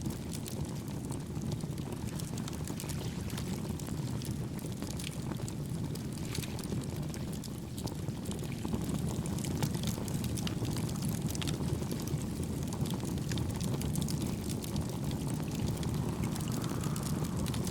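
Wood campfire crackling, with many small sharp pops scattered throughout, over a steady low rushing noise that gets a little louder about halfway through.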